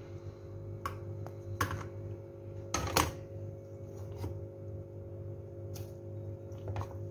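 A metal spoon knocking and clicking against stainless steel pans as cooked elbow macaroni is scooped into a saucepan of bechamel sauce. The knocks are irregular, a handful in all, the loudest about three seconds in, over a steady low hum.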